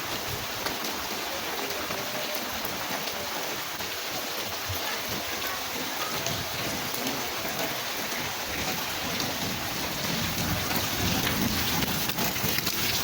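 Heavy rain falling in a windstorm, a dense, steady patter of drops. It grows a little louder and deeper in the last few seconds.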